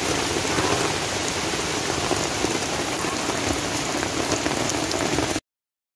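Heavy typhoon rain falling steadily on gravel ground and potted plants, as a dense, even hiss. It cuts off abruptly near the end.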